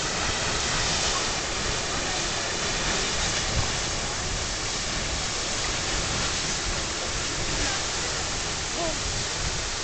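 Grand Geyser erupting: a steady rushing of water and steam, like a waterfall.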